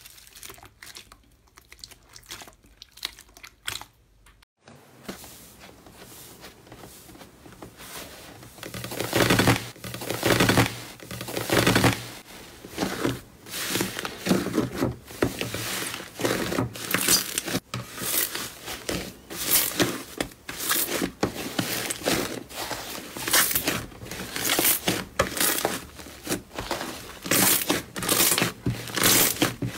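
Hands squeezing and pressing thick white fluffy slime, crackling squishes that come in repeated presses about once a second and grow loud about eight seconds in. At first there are only faint crackles from kneading clear green slime full of foam beads.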